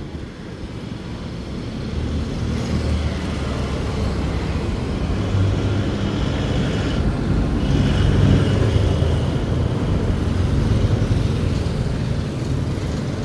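Kawasaki Barako motorcycle engine running steadily after a cold-engine kick start, a test that its hard-starting problem is cured.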